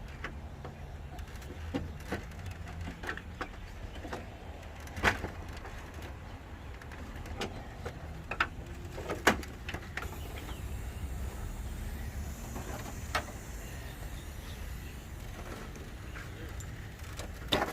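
Plastic grille push-clips being prised and popped loose: a few scattered sharp clicks and knocks, the loudest about five and nine seconds in, over a steady low hum.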